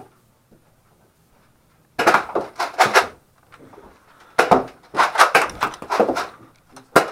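About two seconds of near silence, then rapid clusters of sharp clicks and knocks, three bursts in all, of the kind that come from blasters, darts and gear being handled.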